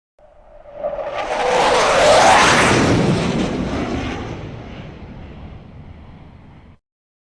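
F-16 fighter jet flying past: the jet noise swells to a peak about two seconds in and drops in pitch as the jet passes, then fades away until it cuts off abruptly near the end.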